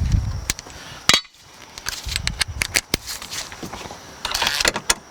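Plastic interior trim clips and their small screws being worked loose: a sharp snap about a second in, lighter clicks a second later, and rustling handling noise near the end.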